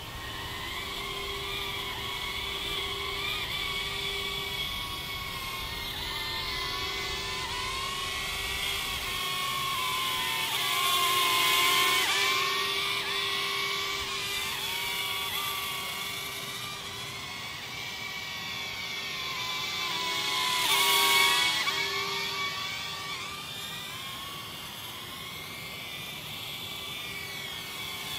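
FuriBee F90 Wasp micro FPV racing quadcopter in flight: its small motors and propellers whine at several pitches that waver up and down with throttle. It gets loudest twice as it comes close, near the middle and about three-quarters through.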